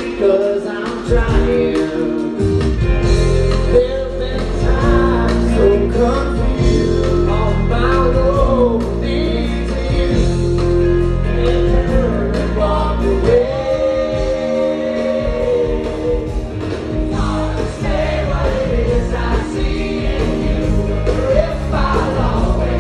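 Live rock band playing a song with male vocals, electric guitars, bass and drums; the bass and drums drop out briefly about halfway through, then come back in.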